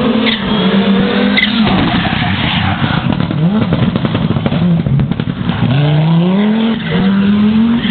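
Rally car engine at full throttle, climbing in pitch through successive gears and dropping back at each shift, with a brief lift off the throttle about five seconds in.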